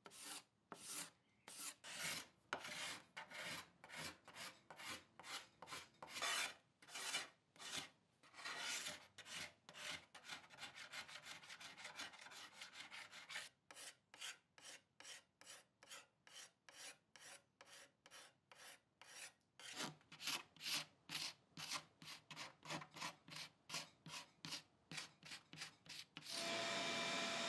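Steel hand scrapers (a paint scraper and a card scraper) scraping old lacquer finish off a solid maple and birch table top, in repeated rasping strokes about two a second. Near the end a vacuum cleaner starts with a steady hum.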